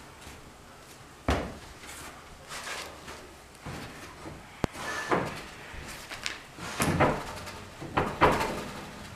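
Wooden bed base and rails being shoved and knocked into the lugs of the bed ends: irregular wood-on-wood knocks and scrapes. A sharp knock comes just over a second in, a short click midway, and the loudest knocks near the end.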